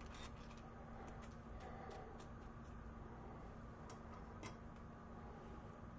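Faint, scattered clicks and taps of small metal hand tools (a machinist square and a scribe) being handled and set down on a granite surface plate, over a steady low hum.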